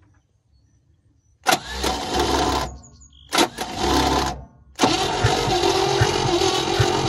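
Starter cranking the 1971 International truck engine, turning it over without firing, in three bursts starting about a second and a half in, the last and longest running about three seconds with regular low pulses. The engine is cranking for a compression test on cylinder five, which reads only about 35 psi: low compression.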